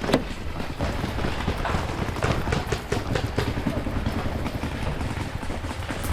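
Footsteps of a player running over the ground, uneven thuds with a low rumble of wind and movement on the head-mounted camera, and a sharp click just at the start.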